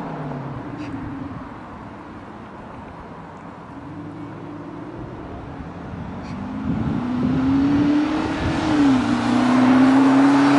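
VW Amarok pickup with a KUFATEC Sound-Booster active sound system playing a synthetic V8-style engine note on profile 5. It is faint while the truck is far off, then grows loud as the truck accelerates toward the listener from about two-thirds in. The pitch rises, dips briefly, and climbs again.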